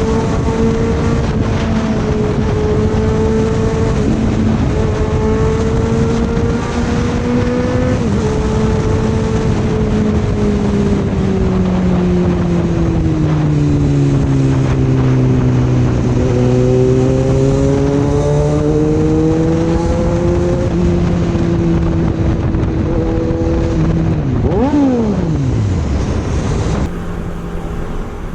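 Sport motorcycle engine running at speed under wind rush, holding a steady pitch, then easing off so the pitch sinks slowly and climbs back as it picks up again. Near the end there is a quick sharp rev that rises and falls.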